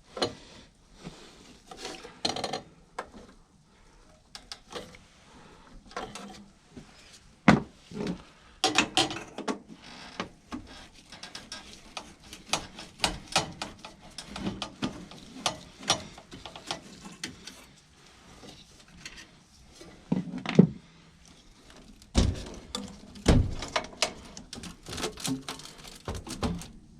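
Hand work on furnace parts: irregular clicks, clanks and knocks of tools and metal pieces being handled, with a few louder thuds.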